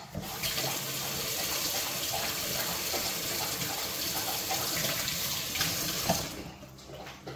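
Kitchen faucet running into a stainless steel sink, the stream splashing onto a cloth held under it to wet it. The water stops about six seconds in.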